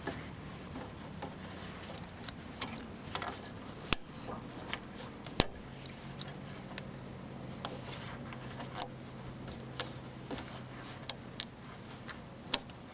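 Scattered small clicks and taps of hand-handled metal and plastic parts as a worn bushing is worked out of a cable fitting, with two sharper clicks about four and five and a half seconds in. A faint steady hum runs underneath.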